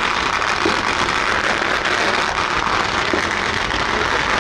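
Firecracker strings crackling steadily in a dense, unbroken rattle of small pops.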